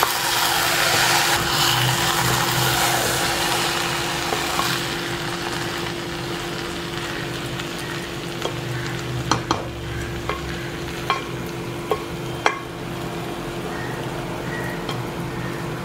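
A flat spatula stirring cooked biryani rice in a hot metal pot: a loud scraping, sizzling hiss for the first few seconds, then lighter stirring with sharp taps of the spatula against the pot. A steady low hum runs underneath.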